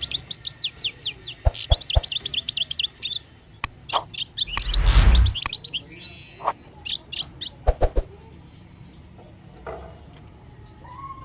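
European goldfinch singing a fast twittering song of rapid, high, descending notes, broken by a few sharp clicks and a loud rustling thump about five seconds in. The song dies away after about eight seconds.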